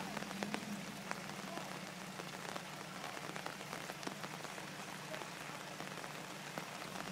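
Steady hiss of water with many small scattered ticks, over a faint steady low hum of an idling Jeep engine.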